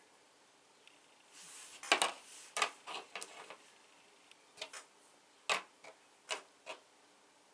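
Dice from the Greed game shaken briefly in the hand and thrown onto a hard surface. A burst of sharp clacks comes about two seconds in, followed by scattered single clicks and knocks.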